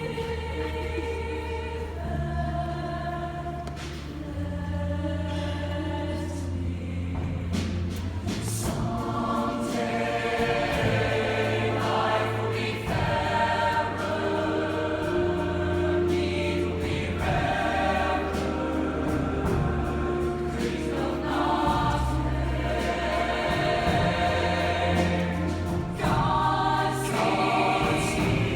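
A group of voices singing a song in held chords that change every second or two over a sustained bass line.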